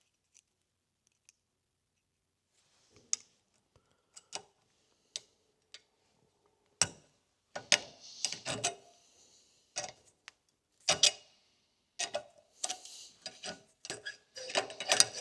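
Small metal parts clicking and clinking against each other by hand, a universal joint's circlip and bearing cap being fitted into a driveshaft yoke. A few scattered clicks at first, then busier clinks and short scrapes from about halfway through.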